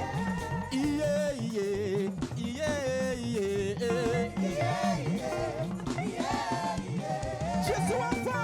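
Live church praise band playing upbeat African gospel music, a wavering melody line over a busy, repeating bass pattern.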